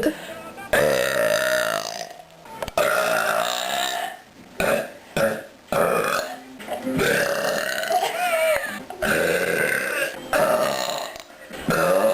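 A woman belching, a string of drawn-out belches one after another, most lasting a second or more and a few short ones between them.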